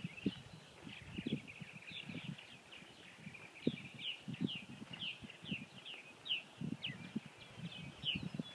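Birds chirping: a busy run of short, quick, downward-sliding chirps, several a second, over low, irregular thumps.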